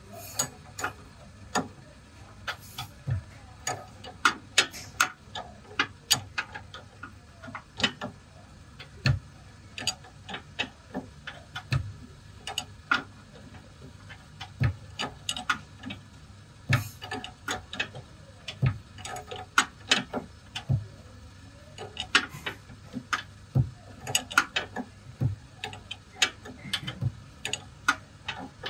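Ratchet wrench clicking in short, irregular runs as it works the nut of a front stabilizer bar end link.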